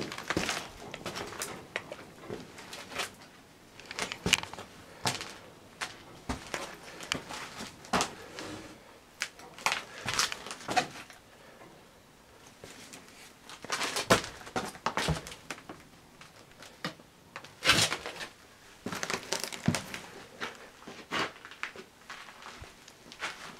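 Irregular footsteps crunching and crackling over a debris-strewn floor, with a few louder crunches in the second half.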